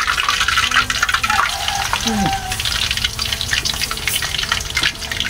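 Hot cooking oil sizzling in a wok as a block of tofu goes in to fry: a steady sizzle thick with crackling spatter.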